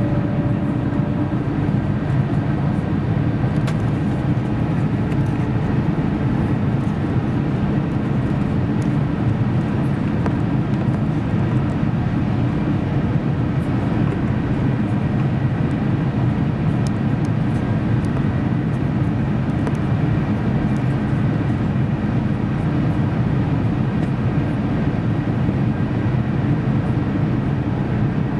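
Steady airliner cabin noise inside an Airbus A350 on approach: the Rolls-Royce Trent XWB turbofans and air rushing past the fuselage make a deep, even rumble with a faint steady whine above it.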